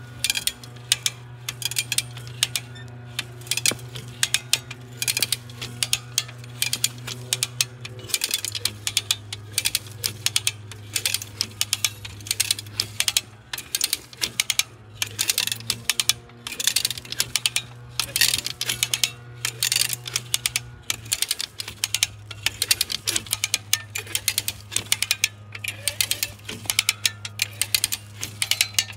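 Hand cable come-along being pumped by its handle: the ratchet pawl clicks off in fast runs, stroke after stroke, as the steel cable winds onto the drum under the load of a tree trunk.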